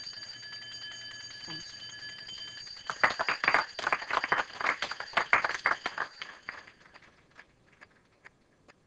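An electric school bell rings steadily for about seven seconds. From about three seconds in, a class applauds over it, and the clapping dies away as the bell stops. A few scattered taps follow.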